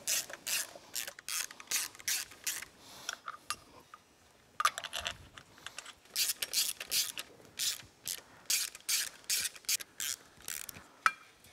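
Small hand ratchet clicking in quick repeated strokes, about three a second, as it runs in the oil pump cover bolts on a motorcycle engine. The clicking comes in two runs, with a pause about four seconds in.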